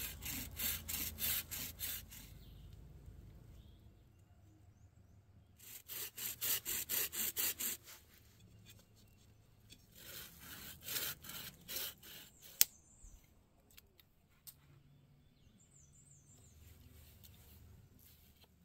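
A folding hand saw cutting a dry wooden pole in quick back-and-forth strokes, about four a second, in three short bursts. A single sharp click follows the last burst.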